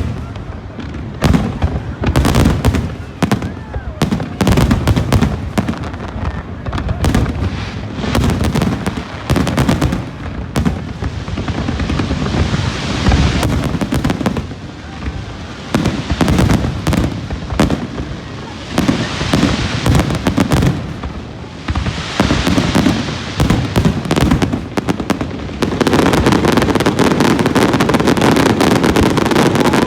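Fireworks display: aerial shells bursting one after another in quick succession, with stretches of crackling between the bangs. About 26 seconds in, a steady, dense loud noise takes over.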